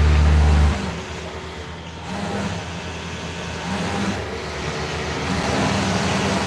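Loud, steady electric motor hum from garment-workshop machinery, cutting off abruptly about a second in; quieter machine noise with brief faint hums carries on after it.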